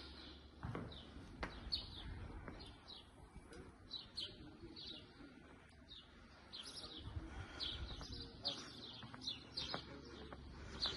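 Small birds chirping repeatedly, short high falling notes several times a second, over a low rumble on the microphone.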